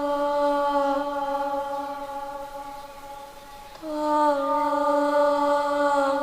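Eerie sustained female-sounding wail or moan for a horror scene: a long held note that fades, then a second held note about four seconds in that slides down slightly at its start.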